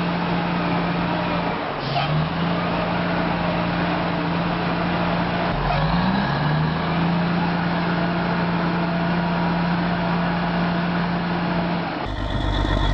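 A heavy vehicle's engine running with a steady drone over a broad rushing noise, its pitch briefly dipping and climbing back twice. The sound changes abruptly near the end.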